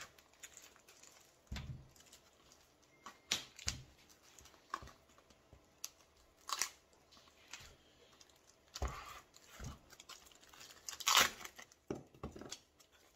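Hardened expanding foam being torn and pulled by hand off a lithium iron phosphate battery's cell pack: a series of short, irregular tearing and rubbing sounds, loudest about eleven seconds in.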